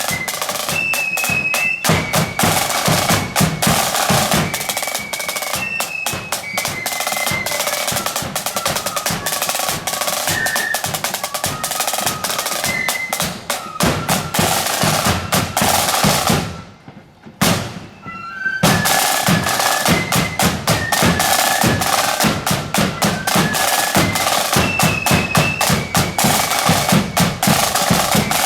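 Marching flute band playing: a high flute melody over steady snare and bass drum beats. A little past halfway the music stops for about two seconds, then the band starts up again.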